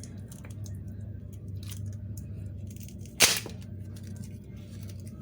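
Small clicks and scrapes of tools prying a smartphone battery loose from its adhesive, with one short, loud scrape or snap about three seconds in, over a steady low hum.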